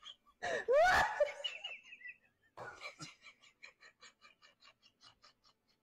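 A high, upward-swooping voice sound about half a second in, then a run of short laughs, about four a second, trailing off.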